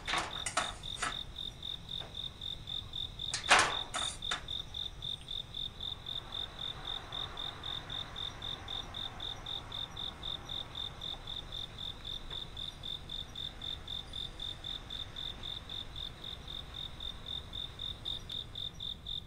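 A cricket chirping in a steady, rapid, evenly pulsed high trill throughout. In the first few seconds there are a few sharp clicks and knocks as food is set on a ceramic plate, the loudest about three and a half seconds in.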